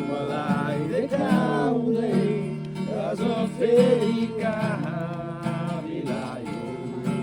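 A song with a singing voice over guitar accompaniment.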